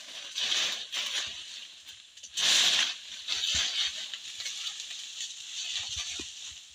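Leafy tree branches rustling and swishing as a branch is pulled down with a pole and falls through the foliage, in several bursts, the loudest about two and a half seconds in.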